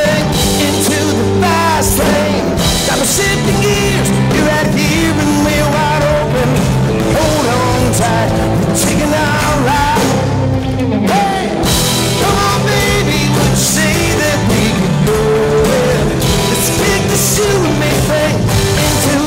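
Live country-rock band playing at full volume: electric guitar, acoustic guitar, bass guitar and a drum kit, with bending lead lines over a steady beat.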